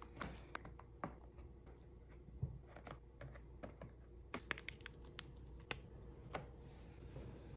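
Small plastic jelly gouache paint cups giving a scatter of light clicks and taps as they are lifted out of their plastic tray and handled, with a crinkle as a sealed lid is peeled back.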